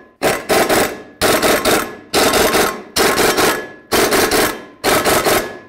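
Impact wrench firing in short bursts, about one a second, each a fast hammering rattle, running down the bolts that hold a brake rotor to its hub.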